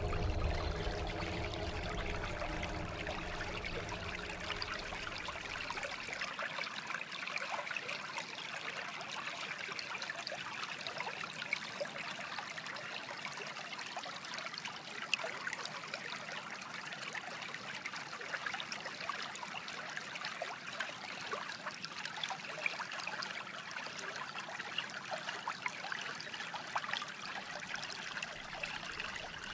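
Trickling, bubbling water with a dense crackle of small ticks. A low humming drone with several steady tones underlies it at first and fades out about six seconds in.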